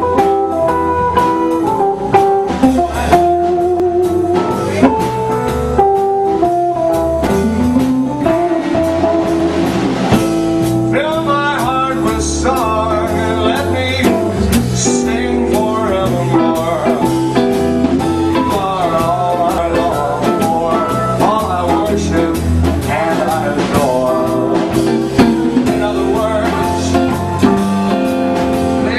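Live band playing a blues number: Stratocaster-style electric guitar over a drum kit, with a man singing over it from about a third of the way in.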